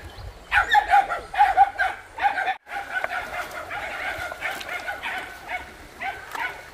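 A dog whining and yipping in short, repeated high cries. The sound breaks off suddenly about two and a half seconds in, then the whining goes on in longer drawn-out notes.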